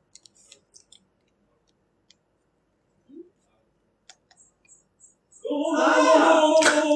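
A few faint clicks, then about five and a half seconds in a loud, drawn-out, wavering vocal sound held for under two seconds.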